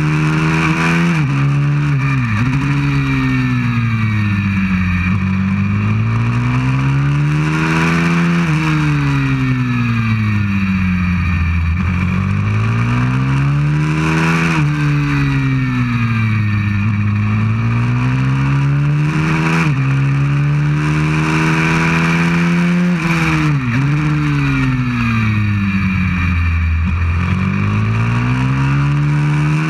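190cc pit bike's single-cylinder four-stroke engine at racing revs, heard close up from on board. Its pitch climbs and falls every few seconds as the bike accelerates and slows lap after lap, with a few sudden brief dips in pitch.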